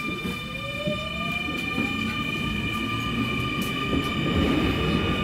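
Nankai 9000 series electric train's VVVF inverter and traction motors, heard inside the motor car. A whine rises steadily in pitch as the train accelerates, over steady high inverter tones and the rumble of wheels on track. A second rising whine with a low hum comes in near the end.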